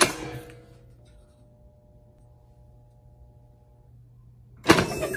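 Heat press clamped shut: a sharp click at the start, then a faint low steady hum with a few faint steady tones, and a loud clatter about four and a half seconds in.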